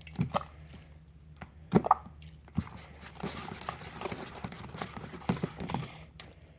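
Sticky, wet slime squelching and popping as it is worked by hand: a few separate squishes in the first two seconds, then a denser run of small pops and squelches. The slime is not fully activated and is still runny.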